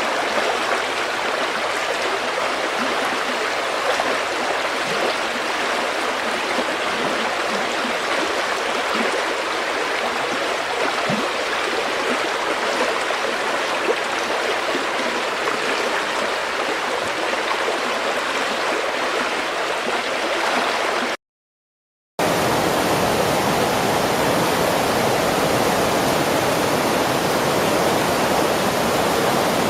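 River water flowing steadily with light gurgles. About two-thirds of the way through it cuts to a second of silence, then resumes as a denser, slightly louder rush of water.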